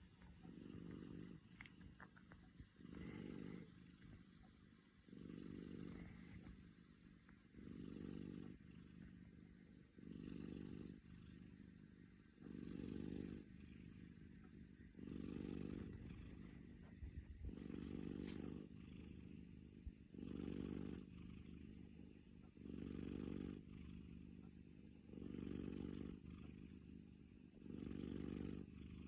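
A Chartreux cat snoring while dozing off, one low snore about every two and a half seconds with each breath.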